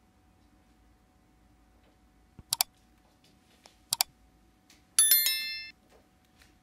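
Sound effects of a like-and-subscribe overlay: a mouse double-click about two and a half seconds in, another about four seconds in, then a short bright notification-bell ding about a second later that rings out in under a second.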